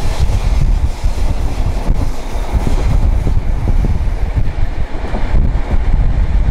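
Steam-hauled train running along the track, heard from on board: a loud, steady rumble of the carriage on the rails with wind buffeting the microphone.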